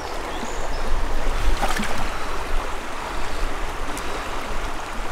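Trout stream water running steadily, an even rushing hiss, with a low rumble underneath.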